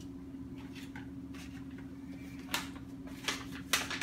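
Paper rustling and crinkling as a greeting card is pulled from its envelope, with a few short, sharp crackles in the second half, over a steady low hum.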